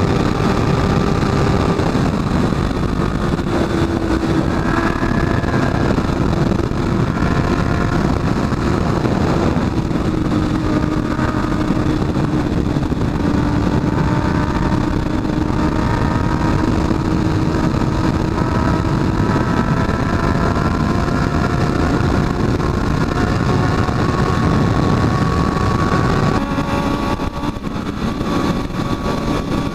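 Honda CB650F's inline-four engine running at highway speed, with heavy wind rush on the microphone; the engine note climbs slowly, then eases and changes pitch near the end.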